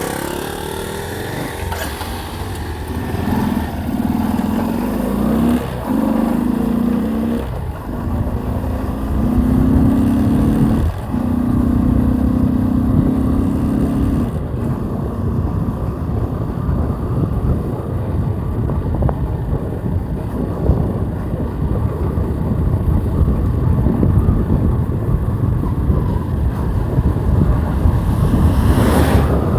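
Bajaj Discover motorcycle engine running with its loud air-filter intake sound. A steady engine note holds for about ten seconds, dropping out briefly three times, then gives way to a rougher rumble.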